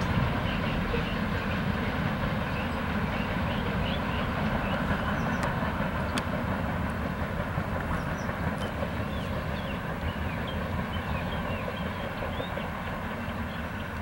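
Union Pacific freight train rolling away, the steady rumble and rattle of its wheels on the rails slowly fading as the last cars pass.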